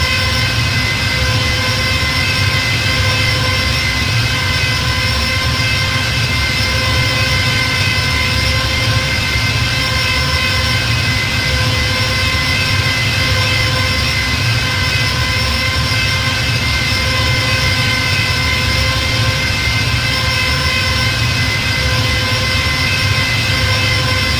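TIE fighter engine sound effect: a steady whining hum of several layered tones over a low rumble, without change.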